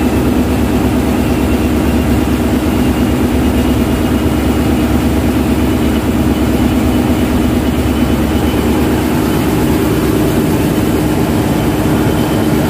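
Ship's diesel engines running steadily in the engine room: a loud, even drone with a constant hum and no change in pace.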